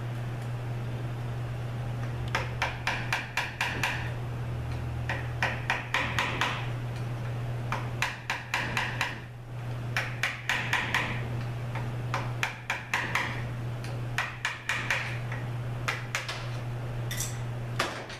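About eight bursts of rapid light tapping, a couple of seconds apart, as the brittle, tight wiring-harness connector of a Subaru 4AT automatic transmission is worked loose from the case.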